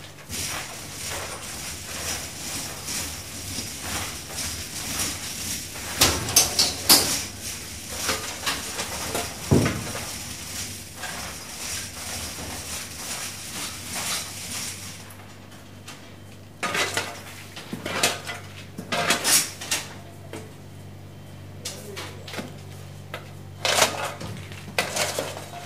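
Coal being loaded onto a steamship: irregular knocks and clattering impacts over a steady low machinery hum, with a steady hiss through the first half that drops away about fifteen seconds in.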